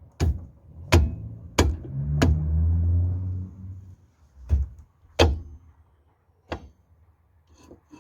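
Sharp knocks on a VAZ 21099 rear brake drum as it is driven onto the hub, seven blows at uneven intervals. One blow about two seconds in leaves the drum ringing with a low hum for over a second. The drum is a tight fit because the brake shoes were not retracted.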